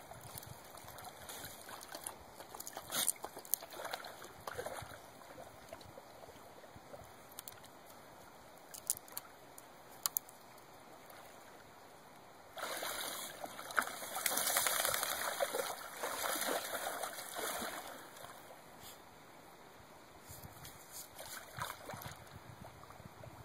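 A dog wading and splashing in shallow water as it digs for rocks with its head under the surface, with water sloshing around it and a few sharp clicks. The splashing is loudest for about five seconds starting around the middle.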